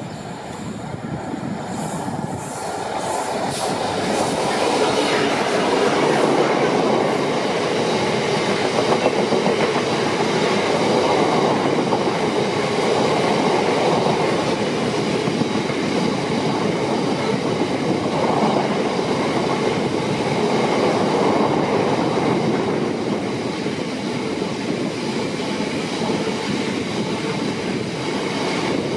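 Class 66 diesel-electric locomotive with its EMD two-stroke V12 engine passing close by. A long train of bogie hopper wagons follows it, rolling past steadily. The sound builds over the first few seconds as the locomotive nears and then holds steady while the wagons go by.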